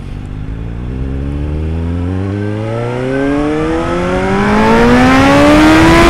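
Suzuki GSR750 inline-four motorcycle engine, breathing through a baffled SP Engineering Tri-Oval exhaust, accelerating hard in one long pull, its pitch and loudness climbing steadily.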